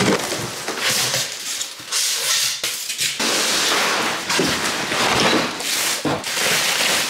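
A treadmill's cardboard shipping box being cut open and unpacked: scissors slitting the packing tape, stiff cardboard flaps scraping and being folded back, and plastic wrapping rustling, in a run of short, loud scraping and rustling bursts.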